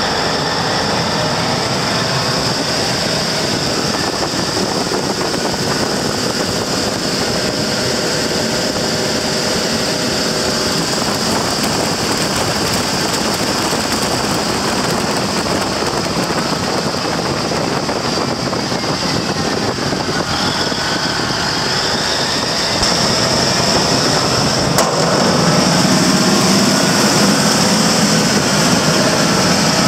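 Caterpillar 3412 twin-turbo V12 diesel engine running steadily, with a constant high whine over the engine noise; it gets a little louder near the end.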